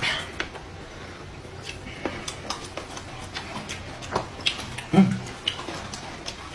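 Close-miked eating: chewing and mouth smacks over noodles, with scattered sharp clicks, and a short voiced 'mm' about five seconds in.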